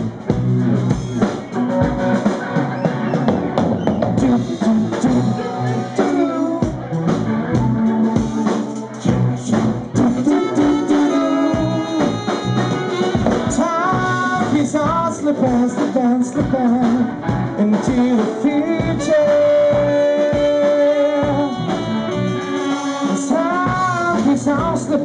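Live band music with drum kit, saxophone, electric keyboard and electric guitar playing together over a steady beat.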